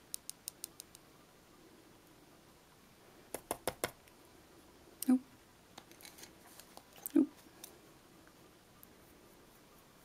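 Light, sharp clicking of a small plastic glitter tube tapping against a long painted fingernail while shaking glitter onto it. The taps come in short runs, one at the start and another about three and a half seconds in, with a couple of softer knocks later.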